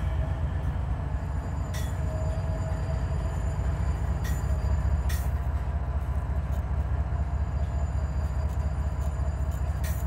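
Norfolk Southern diesel locomotives pulling a freight train slowly away: a steady low engine rumble with a faint steady tone above it and a few sharp clicks at scattered moments.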